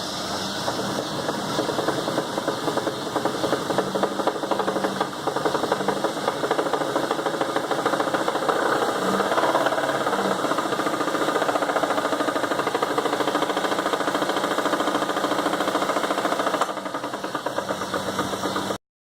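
Chevrolet S-10 engine running with a rapid, rhythmic engine knock. The revs climb as it is given gas, hold, then drop back near the end before the sound cuts off.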